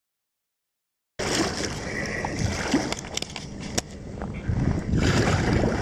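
Kayak paddle strokes splashing and dripping in the water, with wind rumbling on the microphone. The sound starts abruptly about a second in, with a few sharp clicks of water among the steady noise.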